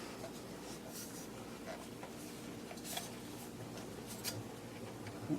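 Faint rubbing and scraping with a few soft clicks, as an 8-inch woofer is worked out of its recessed mount in a wooden speaker baffle.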